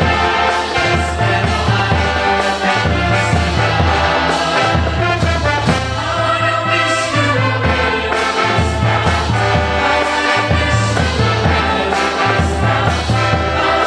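Upbeat brass band music with a steady, pulsing bass beat.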